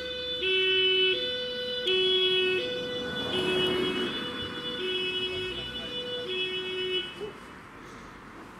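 Two-tone German fire-engine siren (Martinshorn) on a Mercedes fire truck, alternating between a higher and a lower note roughly every three quarters of a second. It goes through five high-low cycles and cuts off about seven seconds in.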